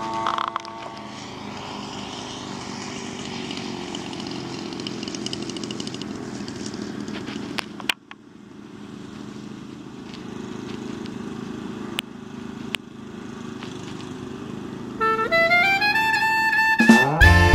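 Single-cylinder two-stroke Zenoah G62 gas engine of a giant-scale RC model plane, running in flight and then, after a sudden cut, running on the ground with the propeller turning. Jazz music with saxophone comes in about two seconds before the end and grows loud.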